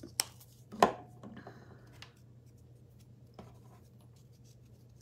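Craft paint and brush being handled on the work table. A sharp click, then a louder knock with a short ring, then about a second of scratchy rubbing ending in another click, with a faint tick later.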